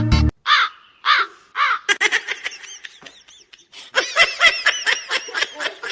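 A bird calling: three separate arching calls, then a fast run of harsher calls from about two seconds in, most rapid and loudest around the fourth and fifth seconds. A music track cuts off just at the start.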